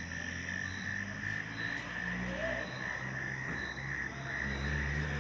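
Night chorus of crickets and frogs: a steady, fast pulsing chirp, with a low hum underneath.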